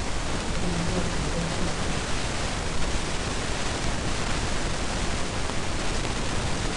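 Steady, loud hiss filling the whole range: the recording's own background noise, with no speech over it. A faint low tone sounds briefly about a second in.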